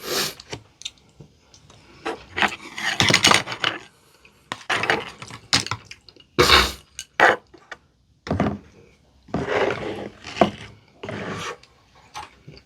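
Close-miked eating sounds in irregular bursts: cutlery and food containers clattering and scraping, mixed with crunchy bites and chewing of very crisp potato-crusted fried chicken.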